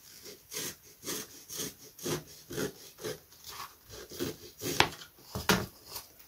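Razor saw cutting through a balsa blank wound with cotton thread, in short back-and-forth strokes at about two a second.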